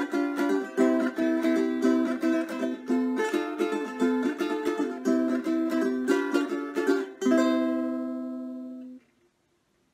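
Ukulele music: rhythmic strummed and plucked chords, ending on a last chord about seven seconds in that rings out, fades and stops about two seconds later.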